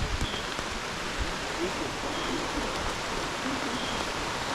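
Steady rain falling on rainforest foliage, an even hiss, with a short high chirp repeating every second or two and a few low bumps.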